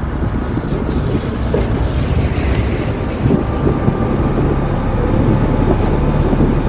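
Storm wind gusting hard across the microphone during a heavy thunderstorm downpour: a loud, steady low rumble.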